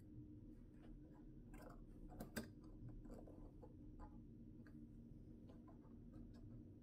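Faint clicks and ticks of a piston ring being worked by hand into its groove on the piston, with two sharper clicks a little over two seconds in, over a low steady hum of room tone.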